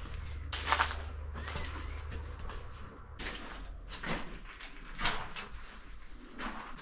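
Footsteps crunching on grit and rubble on a debris-covered floor, about five irregular steps.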